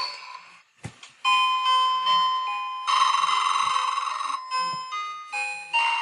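Electronic sound-chip melody from a 1998 Humfrey plush Christmas bear. A simple tune of plain, beeping notes starts after a click about a second in, with one longer held note in the middle.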